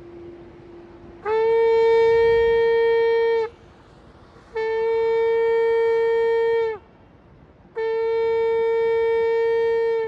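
Shofar blown in three long, steady blasts of about two seconds each, with about a second of pause between them. Each blast scoops up slightly in pitch as it starts and drops off at the end.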